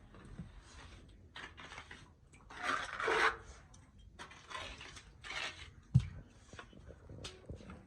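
Several short scraping or rubbing sounds, the longest about three seconds in, and a single dull thump about six seconds in.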